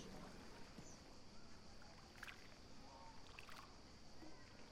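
Near silence: faint steady outdoor ambience with a couple of soft clicks.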